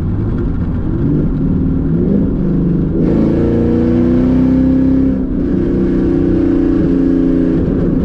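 Camaro's 6.2-litre V8 under acceleration, heard from inside the cabin through a cracked window. The engine note builds and climbs, drops briefly about five seconds in as if at a gear change, then pulls strong again.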